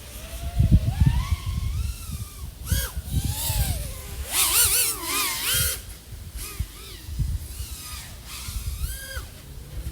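iFlight AOS 3.5 V5 FPV quadcopter's brushless motors and propellers whining, the pitch sweeping up and down repeatedly with the throttle, over irregular low buffeting.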